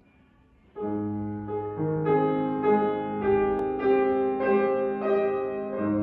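Grand piano starting to play about a second in, chords and notes struck in a slow, even rhythm and left to ring.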